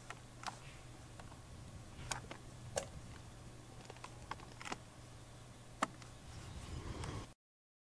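Scattered sharp plastic clicks and knocks, about half a dozen, the loudest near the end, as a flexible polymer horse-fence rail is clipped into plastic post brackets.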